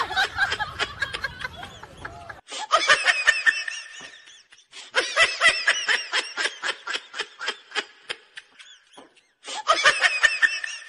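Laughter sound effect laid over the video: rapid, high-pitched snickering in quick bursts, in several runs broken by short pauses.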